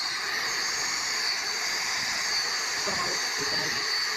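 A steady hiss with a faint, thin high whine running through it, even in level throughout.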